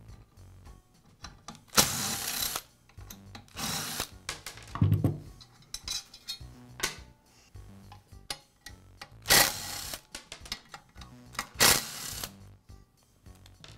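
Cordless screwdriver backing out the screws that hold a circular saw's aluminum shoe, in about five short runs of well under a second each, with small clicks and knocks between them.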